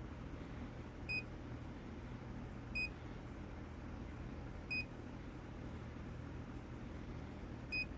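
Bluetti AC200P power station's touchscreen beeping as its menu buttons are tapped: four short, high beeps, a second or two apart, over a faint, steady low hum.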